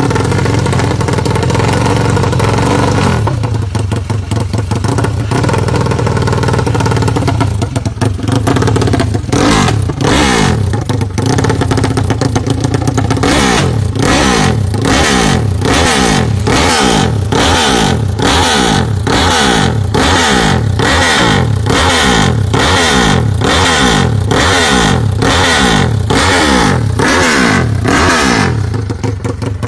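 Modified Yamaha Mio drag-bike engine, claimed to be bored out to 500 cc, running loud and steady, then blipped hard over and over at about two revs a second before settling back.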